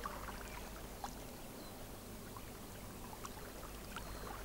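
Faint steady hiss with a low hum and a few soft scattered ticks; no voice or music.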